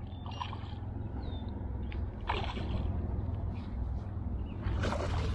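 Hooked bass splashing at the water's surface as it is reeled in close to a kayak, the splashes louder and more frequent near the end, over a steady low rumble.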